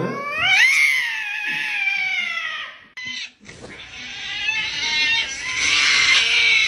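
Cat yowling in two long, drawn-out calls. The first rises and then slowly falls over about three seconds. The second starts after a short break and runs on.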